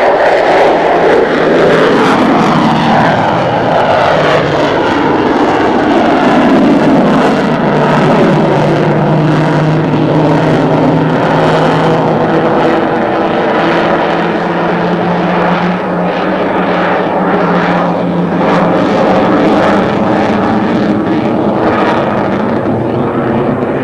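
F-14 Tomcat's twin jet engines at high power as the fighter climbs away after a simulated landing. The pitch slides down over the first several seconds as it passes, then settles into a loud, steady jet noise with a low hum.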